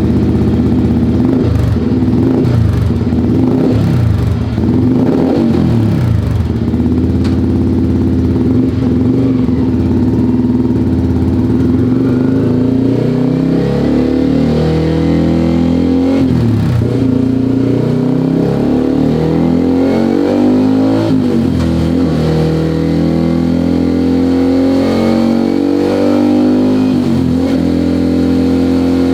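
Motorcycle engine breathing through a 3Tech EvoX STD aftermarket exhaust with its dB-killer baffle removed, idling and revved in short throttle blips several times.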